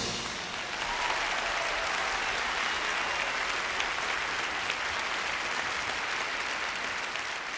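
Large audience applauding steadily, the clapping easing off slightly near the end.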